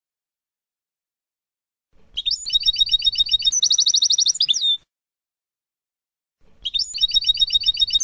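European goldfinch song in the 'Abu Khalil' style: two phrases of fast, high trilled notes, each ending in a quick downward slur, with a pause between them. The second phrase is a near-exact repeat of the first, typical of a looped tutoring recording for young birds.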